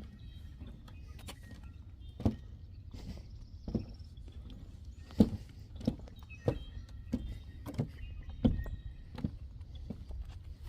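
Footsteps of a person walking along a trail at a steady pace, about one and a half steps a second.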